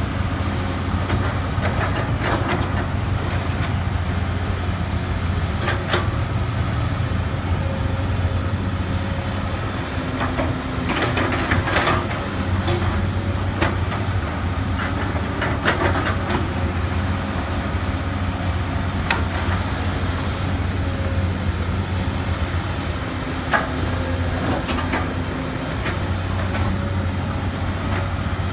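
Komatsu PC200 hydraulic excavator's diesel engine running steadily at working speed, with occasional sharp metallic clanks and knocks while it handles soil.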